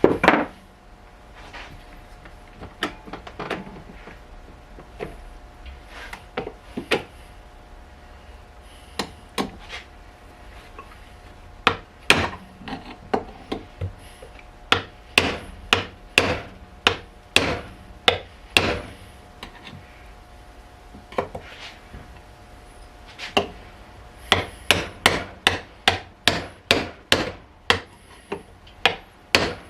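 Hammer blows driving new wheel bearings into a Porsche 924 front hub: scattered strikes at first, then a fast, even run of about two to three blows a second near the end.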